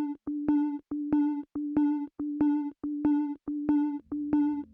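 Background music: an instrumental break in a song, a synthesizer repeating short notes in a quick, even pulse, with a low bass coming in near the end.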